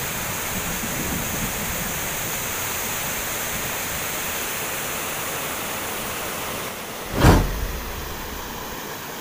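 Steady rushing of a shallow river running over stones. About seven seconds in, a single sudden loud whoosh as a 'Subscribe' button animation appears.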